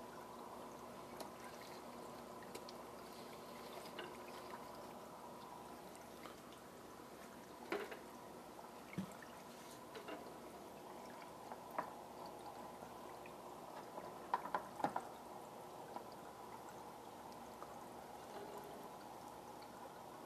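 Hang-on-back aquarium filter's return water pouring steadily into the tank, its freshly cleaned pump flowing freely, over a faint steady hum. A few brief clicks and knocks break in around the middle and about two-thirds of the way through.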